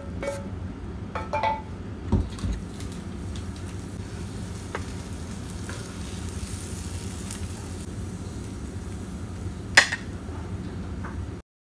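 Metal fork clinking and scraping on a ceramic plate, a few scattered clinks with one sharp, loud clink near the end, over a steady low background hum; the sound cuts off suddenly just before the end.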